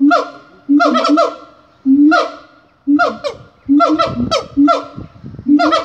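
Siamangs calling loudly in short bouts of honking, barking notes, a new bout about every second, each starting suddenly and fading. The calls are pushed out from an inflated throat sac, with some deeper booming in the middle.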